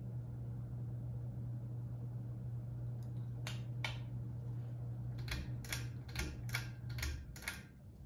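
Atlantic Air 42-inch ceiling fan humming steadily as it runs. From about three seconds in, a pull-chain switch clicks around nine times. Near the end the hum dies away as the fan and its lights are switched off.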